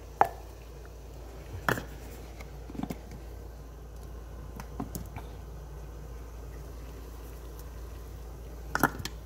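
A few light clicks and knocks of a plastic measuring cup against a bowl and canister as cornmeal is poured and scooped, over a steady low hum.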